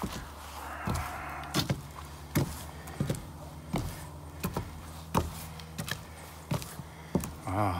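Footsteps walking along a low roof covered in synthetic roofing underlayment: a steady series of knocks, about one step every three quarters of a second.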